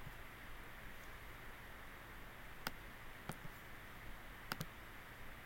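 Computer mouse clicking four times, the last two in quick succession, as points of a curved line are placed. Faint steady hiss throughout.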